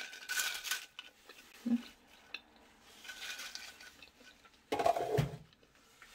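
Crisp fried plantain chips rustling and clinking on a china plate as they are handled. About five seconds in comes a louder clatter of kitchenware with a dull knock.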